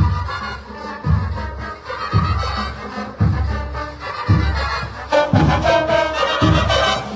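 Festival brass band playing, with a low drum beat about once a second; the band comes in fuller and brighter about five seconds in.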